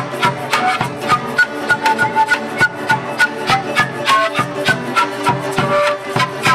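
Andean folk ensemble playing: an Andean flute carries the melody in held notes over strummed charango and guitar, which keep a steady, quick beat of about three strokes a second.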